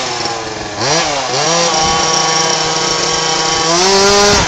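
FG 4WD large-scale RC buggy's two-stroke petrol engine revving: it climbs about a second in, holds steady at high revs, climbs higher near the end, then drops off.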